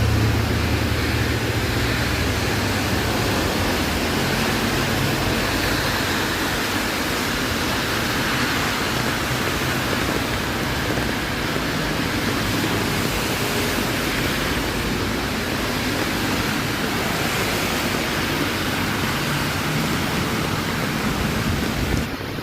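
Steady rushing noise of a wet city street in the rain, with a low vehicle hum fading out over the first two seconds.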